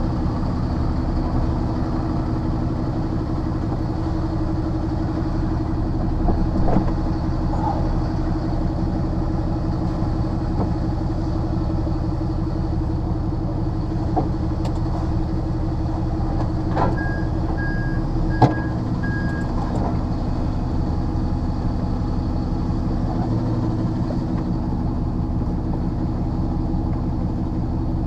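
Diesel engine of a rigid HGV lorry running steadily, with a few light clicks and one sharp click about eighteen seconds in. A reversing alarm beeps four times, evenly spaced, starting about seventeen seconds in.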